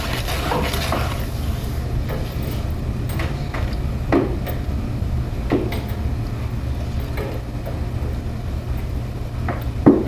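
A utensil knocking and clinking against a dish now and then as slime is stirred, with the loudest knock near the end, over a steady low hum.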